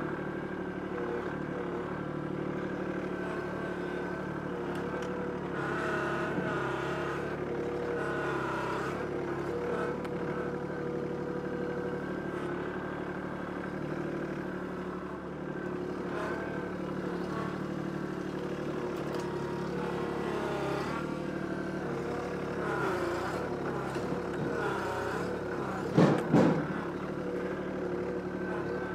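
Kubota B2261 compact tractor's three-cylinder diesel engine running steadily while the front loader works a stump ripper through roots, its note wavering at times under load. Two loud knocks near the end.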